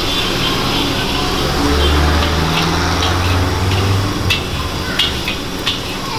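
Egg omelette frying in hot oil in a wok, with a steady sizzle, and a metal spatula clinking against the wok several times in the second half. A low rumble swells and fades in the middle.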